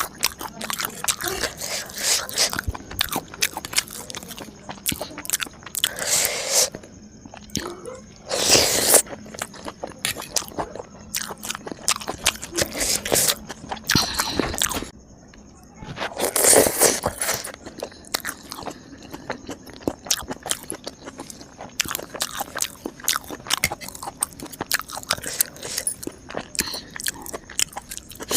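Close-miked eating: a run of crunchy bites and chewing with many small wet mouth clicks, and several louder crunches spread through.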